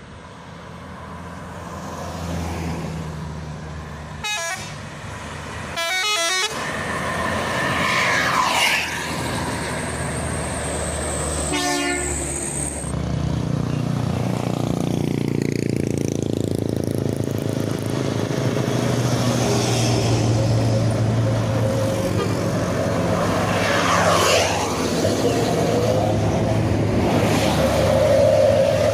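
Bus telolet horns sounding in several short, pulsing bursts in the first half, as buses go by. From about halfway, the steady drone of heavy bus engines pulling takes over and grows louder, with vehicles sweeping past.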